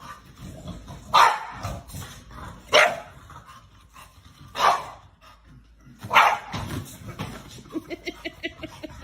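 A dog barking: four single barks about a second and a half apart, then a fast string of short yips near the end.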